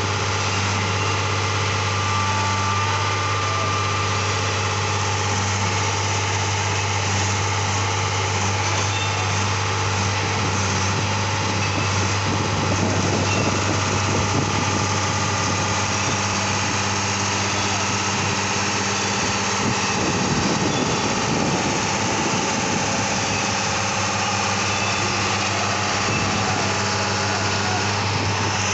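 Diesel engine of a rail-mounted track maintenance machine idling steadily with a constant low hum.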